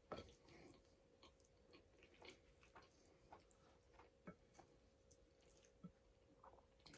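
Faint close-up chewing of a mouthful of creamy Cajun pasta: soft wet mouth sounds with scattered small clicks.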